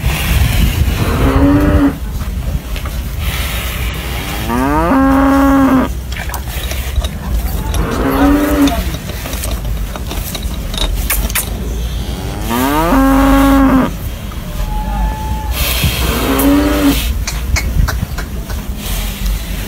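Zebu cattle mooing: five calls a few seconds apart, each about a second long, rising in pitch and then holding, over a steady low rumble.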